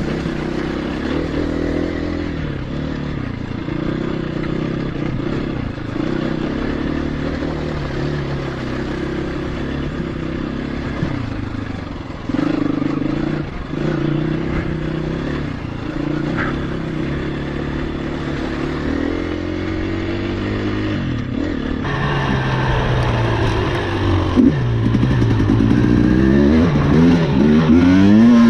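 KTM 350 EXC-F single-cylinder four-stroke dirt bike engine running under a rider on a trail, its note rising and falling with the throttle. Near the end it gets louder, with the revs climbing and dropping more sharply.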